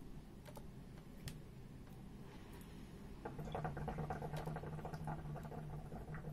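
Hookah water bowl bubbling in a rapid burble as smoke is drawn through the hose, starting about three seconds in and stopping about three seconds later.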